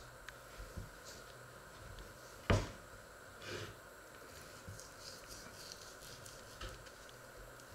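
Knife cutting cooked meat off the bone on a wooden cutting board: small taps and soft cutting sounds, with one louder knock about two and a half seconds in, over a steady background hum.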